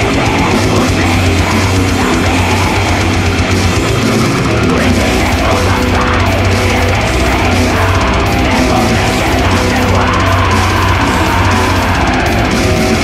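Black metal song: loud, dense distorted electric guitars over a drum kit, playing without a break.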